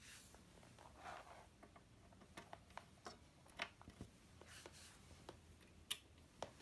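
Faint, scattered clicks from the reset button and toggle switches of a TFC-10 prop control box being pressed and flipped, with one sharper switch click near the end. A soft rustle of the hand comes first.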